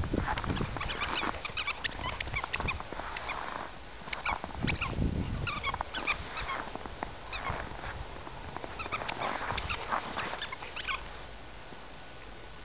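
Young Old English Sheepdog at play with a stuffed toy: dog sounds mixed with a rapid scatter of short clicks and scuffles, dying away about eleven seconds in.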